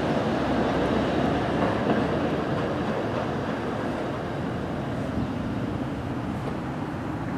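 Streetcar rolling along its rails and moving away, its steady rumble slowly fading.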